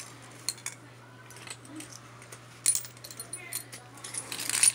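Fidget spinners clicking and clinking against each other as they are handled and picked up from the carpet, a few scattered sharp clicks, with a rustling scrape near the end.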